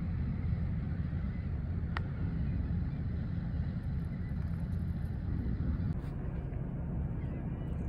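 Low, uneven rumble of wind buffeting the microphone outdoors, with a single sharp click about two seconds in.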